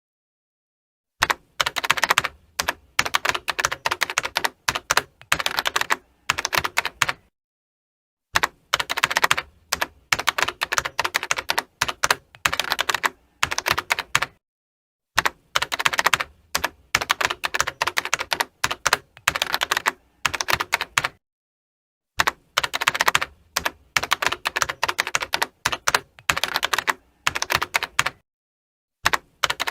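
Typing on a computer keyboard: rapid runs of key clicks in bursts of a few seconds, broken by short pauses.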